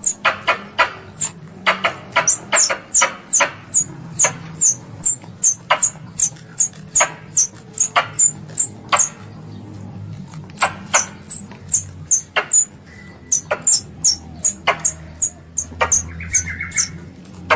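Squirrel lure call: a rapid series of sharp, high chip calls, about two to three a second, with a pause of about a second near the middle.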